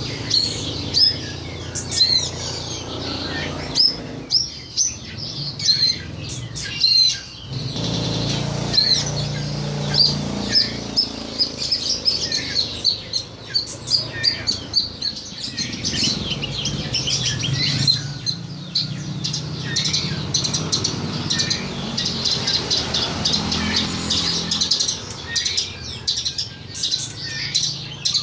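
Javan bush lark (branjangan) singing a long, continuous song of rapid short chirps and whistled notes, a training song for young songbirds to copy.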